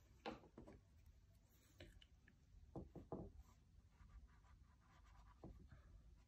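Faint scratching and rubbing of a paintbrush: wiped in a cloth, then stroked across a stretched canvas in short strokes with pauses between them.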